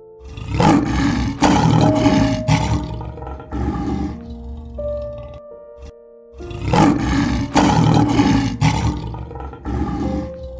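Lion roaring in two bouts a few seconds apart, each a run of several loud roars, over background music.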